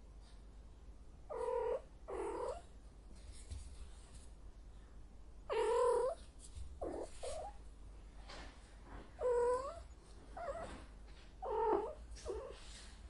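A female cat in heat calling: a string of about eight short, pitched yowls, spaced irregularly, the longest about half a second. This calling is the mating call of a queen in season.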